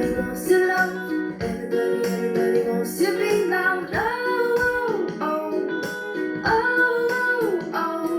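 A song with female vocals over plucked acoustic guitar, played back through an LM3886 chip amplifier and 6.5-inch full-range speakers; the singer holds two long notes near the middle and later on.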